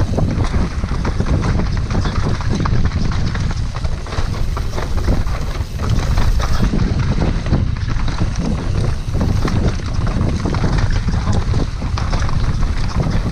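Wind buffeting the microphone as a downhill mountain bike rolls fast over a rough dirt trail, with a constant clatter of short clicks and knocks from the bike and tyres over the bumps.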